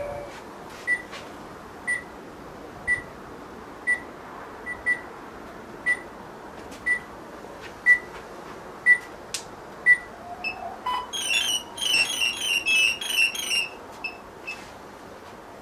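Graupner MC-32 radio transmitter, just switched on, giving a short high beep about once a second. About ten seconds in, as its flight battery is connected, the MikroKopter OktoKopter XL's electronics give a short rising tone and then a quick run of high start-up beeps.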